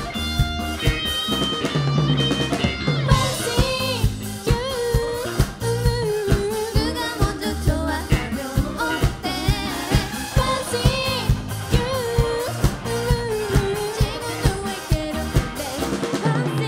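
Live band performing a song: a lead vocal over a drum kit keeping a steady beat, with guitar and bass. The voice comes in about three seconds in.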